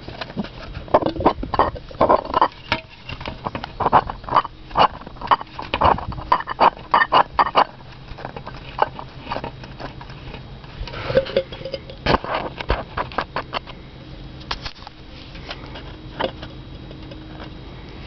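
Old MTX Terminator 15-inch subwoofer being worked by hand, giving quick runs of scratchy clicks, busiest in the first half and again about two-thirds of the way in: the sign of a voice coil hitting the sides of its gap as the cone moves.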